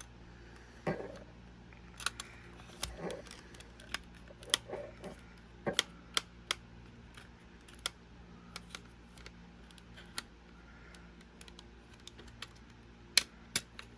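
Scattered sharp clicks and light taps of hands working the plastic casing of a Sony WM-FX28 Walkman, pressing and prying to find where the case comes apart.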